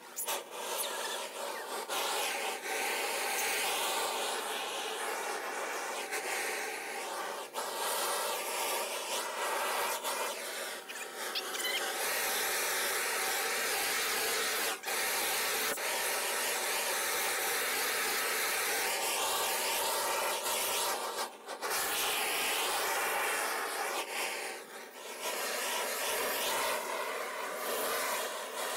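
Propane weed-burner torch running with a steady rushing noise as it scorches pallet-wood boards. The noise breaks off briefly a few times.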